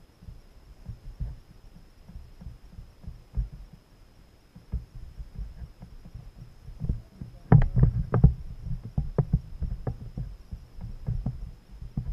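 Irregular low thumps and knocks on a kayak as the angler shifts and handles a freshly caught fish, with a burst of louder, sharper knocks and clicks about seven and a half seconds in.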